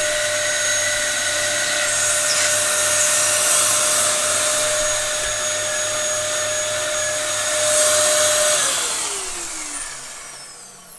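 Dyson DC07 Animal upright vacuum cleaner running with a steady, noisy whine. About eight and a half seconds in it is switched off, and the motor's whine falls in pitch as it winds down.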